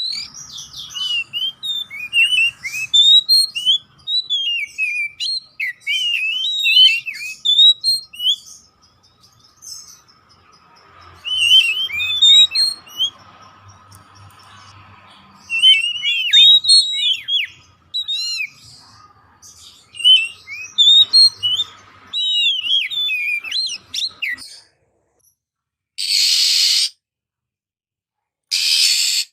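Oriental magpie-robin (kacer poci) singing in bouts of quick, varied whistles and chirps with short pauses between phrases. The song stops near the end, followed by two short bursts of hiss.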